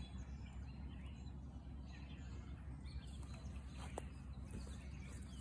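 Outdoor ambience: a low steady rumble with faint bird chirps, and a single sharp click about four seconds in.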